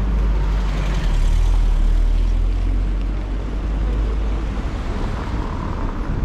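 A small car driving slowly past on a brick-paved street, its tyres rumbling over the pavers, over a steady low rumble.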